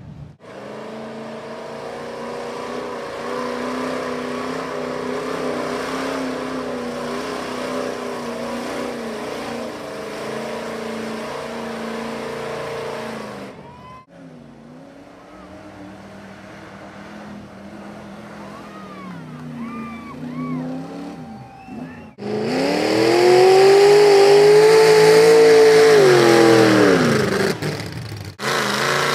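Mud-bog trucks' engines running and revving as they churn through a mud pit, in three cuts. First comes a steady engine drone for about half the time, then a quieter stretch where the revs rise and fall, and near the end the loudest part, a hard rev that climbs and falls over several seconds.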